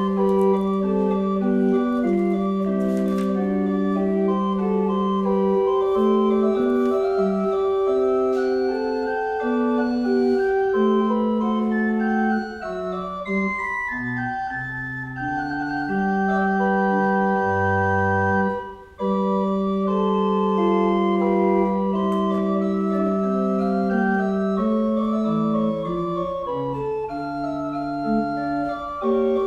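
Pipe organ playing slow music of long held chords, with a short break about two-thirds of the way through.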